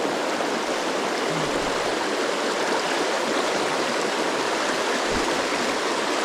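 Steady rush of a small river's current flowing over rocks, with a faint low thump about five seconds in.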